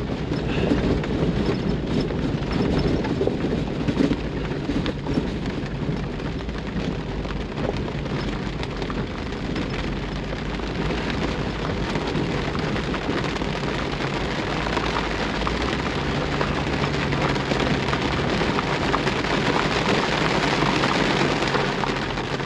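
Rain falling steadily on the roof of a Jeep, heard from inside the cabin as a dense patter of drops over the low, steady hum of the engine. The top is full of little cracks and holes, so water drips through into the cab.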